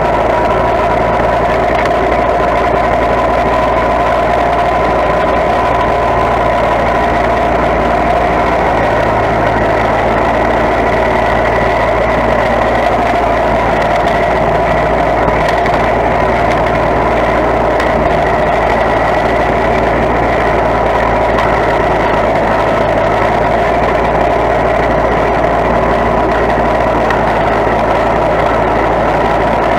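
Small lawn tractor engine running steadily as the tractor is driven, heard close up from on board.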